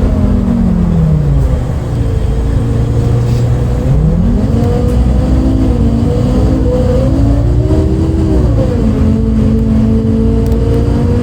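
MAN D0836 LOH six-cylinder diesel of a MAN Lion's City A37 bus, with ZF Ecomat automatic gearbox, heard from inside: the engine note falls away, then builds again as the bus pulls, drops sharply about eight and a half seconds in as the gearbox shifts up, and settles to a steady drone. The engine has an unusual note that the uploader had never heard from a MAN before.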